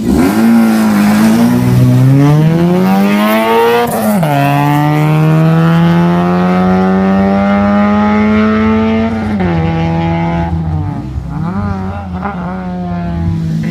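Rally car launching from a hill-climb start at full throttle. The engine revs climb hard, drop at a gear change about four seconds in, climb again, and drop at another shift about nine seconds in. The engine sound then wavers and fades as the car draws away.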